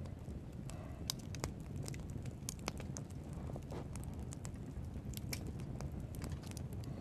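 Wood campfire crackling: sharp, irregular pops and snaps over a low steady rumble.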